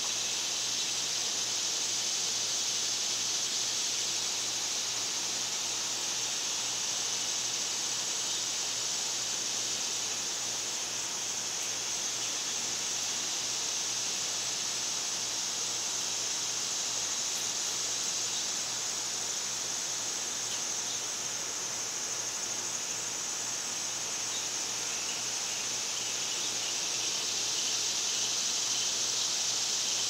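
Steady, high-pitched chorus of insects, an unbroken summer hum with no clear pulse.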